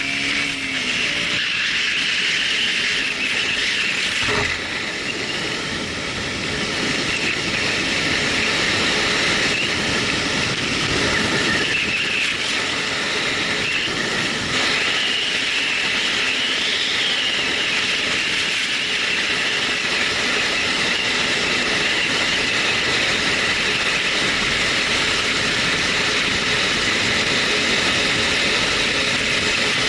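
Harsh, steady noise recorded through a Sony HDR-AZ1 action camera's built-in microphone: a loud hiss with a whine near the top. The uploader cannot tell whether it is a factory defect or simply how this model records.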